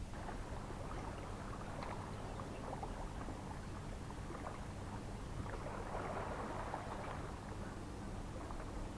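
Small waves washing and lapping over stones at the water's edge, with a crackly fizz of water through the rocks; the wash swells about six seconds in and then eases.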